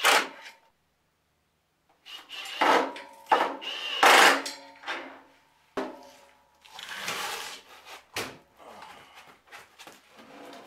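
Steel loading ramps being moved about on a concrete floor: irregular clanks, knocks and scrapes of metal, some strikes ringing briefly.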